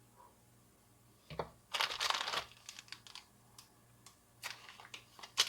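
Tablet packaging being handled during an unboxing: a click, about a second of rustling, then light scattered taps and clicks, with a sharper click near the end.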